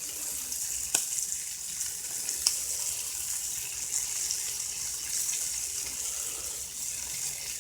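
Catfish pieces frying in butter in a pan: a steady sizzle with a couple of sharp pops, about a second in and again a second and a half later.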